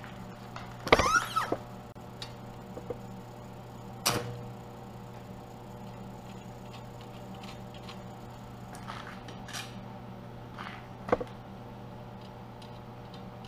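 Metal being handled at a workbench: a loud scraping clatter about a second in, a sharp knock near four seconds, and a knock with a brief metallic ring about eleven seconds in, over a steady low hum.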